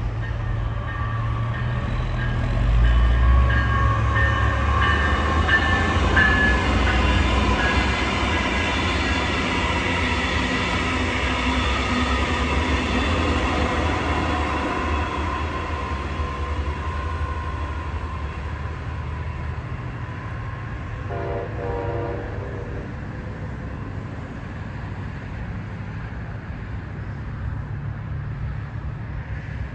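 A train passing close by with a heavy low rumble, loudest a few seconds in and easing off in the second half. Its horn sounds through the first half, and there is a short horn-like tone about 21 seconds in.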